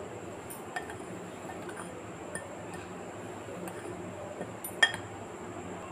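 A metal spoon stirring dry cake ingredients (flour, sugar and cocoa powder) in a glass bowl: soft scraping with a few light clinks of the spoon against the glass, and one sharper clink near the end.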